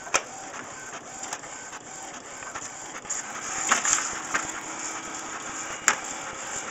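Inkjet all-in-one printer running as it prints, a steady mechanical whir with faint repeated strokes, broken by a few sharp clicks and paper rustling as a cat paws at the sheet feeding out.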